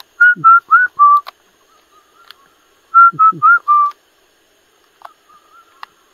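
A clear four-note whistle, given twice about three seconds apart; each phrase has short, slightly up-turned notes, the last one lower.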